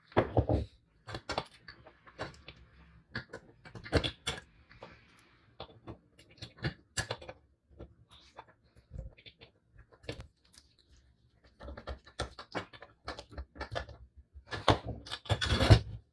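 Small metal parts of a vintage balance scale clicking, tapping and knocking as the beam and fittings are handled and fitted onto its cast base, irregularly with short quiet gaps. A few louder knocks come just after the start, around four seconds in, and in a cluster near the end.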